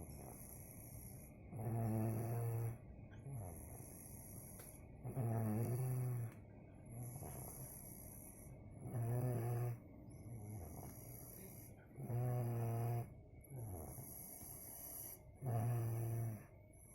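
A young child snoring in deep sleep: five loud, rhythmic snores about every three and a half seconds, with softer breaths between them. The parent puts the snoring down to tiredness from school.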